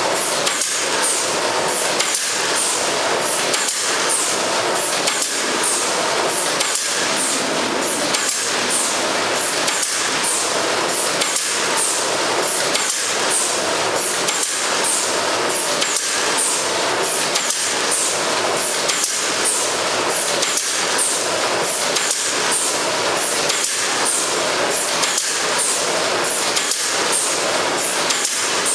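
Horizontal pouch-packing machine running steadily: a continuous mechanical clatter with an even rhythm of sharp clicks.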